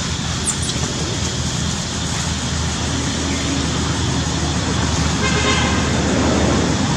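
Steady road-traffic noise, growing louder near the end, with a short high tone about five seconds in.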